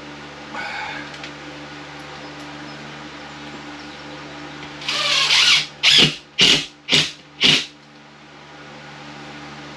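A tool cutting into drywall: about halfway through, one longer rasping burst, then four short strokes about two a second, over a steady low hum.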